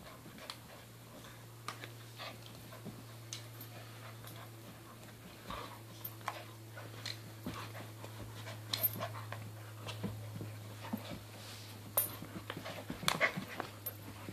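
A puppy and a border collie play-fighting: irregular scuffling and mouthing noises with short dog vocal sounds, busier and louder near the end. A steady low hum runs underneath.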